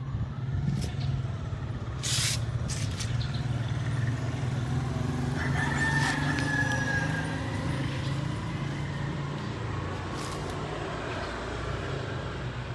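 A rooster crowing once about five seconds in, over a steady low hum.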